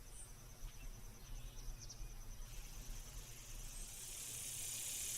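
Faint outdoor ambience: a steady, high, pulsing insect trill, like crickets, over a low rumble, with a soft hiss swelling toward the end.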